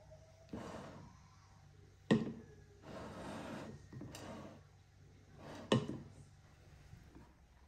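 A wooden-handled spoon stirring and scraping through hot steamed couscous in a glazed terracotta dish, working in butter and salt: several scraping, rustling strokes, with two sharp clacks of the spoon against the dish, about two seconds in and near six seconds.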